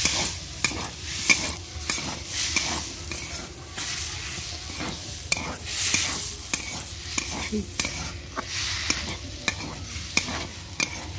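Metal spatula scraping and knocking against a steel kadai in repeated, uneven strokes as boiled potatoes are half-mashed and stirred into a tomato-onion masala, with the masala sizzling underneath.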